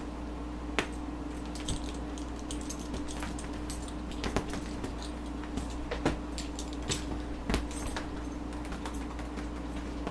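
Metal buckle of a leather belt rattling and clinking in irregular bursts as the belt is shaken and dragged.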